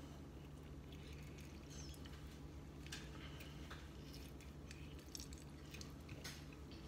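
Lime being pressed in a hand-held lime squeezer: faint squishing and a few soft clicks over a low steady hum.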